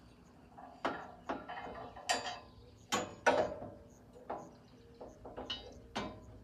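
Metal clanks and knocks as a tubular metal brush guard is shifted against the front of a John Deere X350 riding mower and its long pass-through pin is worked into the mounting holes. About eight sharp, irregularly spaced knocks.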